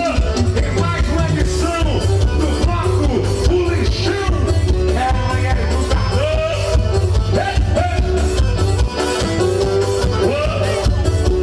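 Amplified forró music: a band with a singer, a heavy bass and a fast, steady beat.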